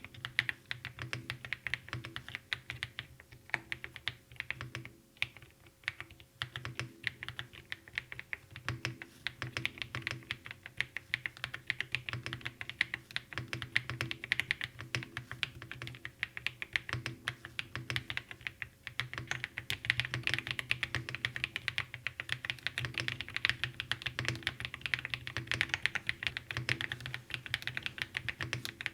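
Fast, continuous typing on the Monstar Gear Gats X500 Pro, a 100-key keyboard with round pebble-style keycaps: a dense run of key clicks that thins out briefly about five to eight seconds in.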